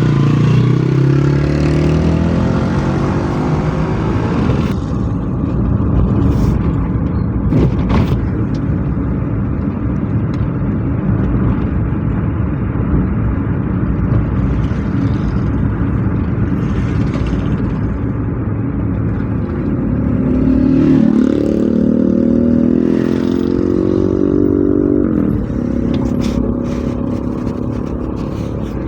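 Motor vehicle engines running steadily. An engine speeds up with a rising pitch just after the start, and again about 21 seconds in before dropping back near 25 seconds.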